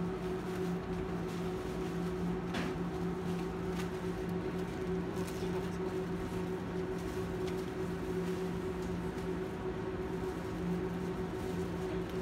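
Steady mechanical hum of an indoor shop's background, with an even hiss and a faint knock about two and a half seconds in.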